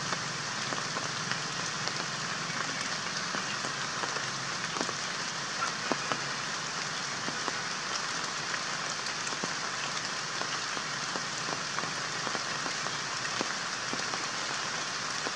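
Steady rain pattering, with many scattered drops ticking sharply.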